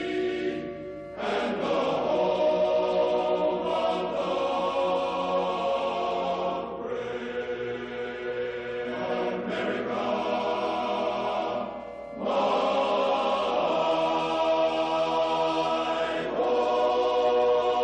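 Choral music: held choir chords, slow and solemn, moving to a new chord every few seconds.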